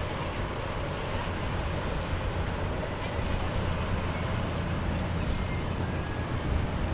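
Boat engines running with a steady low drone, over a hiss of wind and water.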